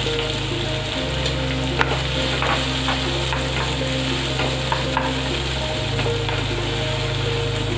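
Freshly added chopped onions sizzling in hot mustard oil in a nonstick pan, stirred with a wooden spatula that scrapes and taps against the pan every so often.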